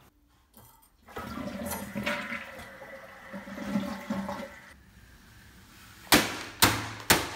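A toilet flushing, water rushing for about three and a half seconds. Near the end, three sharp thumps as a hand smashes a paper bag down onto a wooden table.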